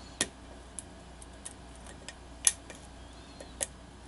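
Lock pick and tension tool working the pins of a pin-tumbler challenge lock: a few scattered sharp metallic clicks as pins are lifted and set, the loudest about two and a half seconds in.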